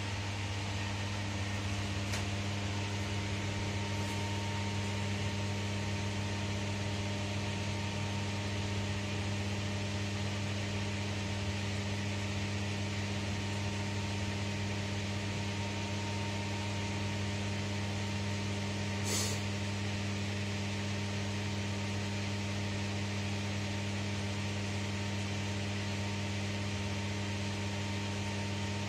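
Steady machinery hum with a constant hiss, heard inside an enclosed Ferris wheel cabin. A brief sharp hiss comes about two-thirds of the way through.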